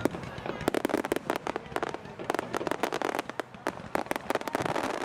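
Aerial fireworks going off in a rapid barrage of sharp cracks and pops, several a second, thinning out near the end.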